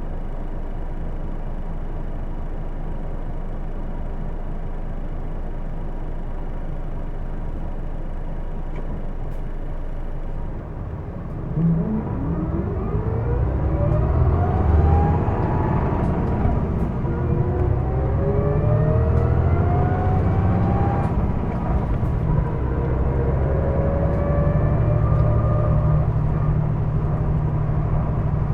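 Hino Blue Ribbon II city bus's diesel engine, heard from inside the bus, running steadily with a thin steady tone, then about eleven seconds in the bus pulls away and the engine note rises through three gears in turn. Whining tones climb with the revs in each gear; this bus is known for an odd noise.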